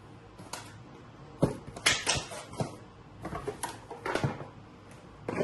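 Cardboard box and packaging being handled: a run of short knocks and rustles, the loudest about one and a half seconds in.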